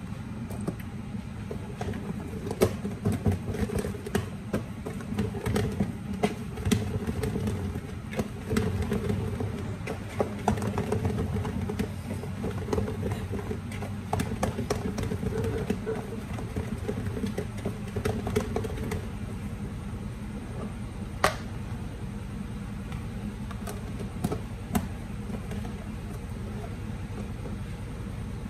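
Boiled potatoes knocking and sloshing inside a lidded plastic bowl as it is shaken to mix in the spices, with irregular clicks and knocks over a steady low hum.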